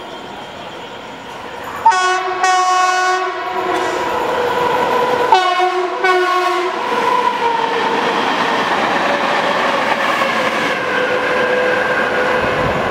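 A WAP-5 electric locomotive heading the Amrit Bharat Express sounds its horn twice, each a long blast about a second and a half, starting about two and five seconds in. Then the train rushes through the station at full speed with a steady rumble and wheel clatter.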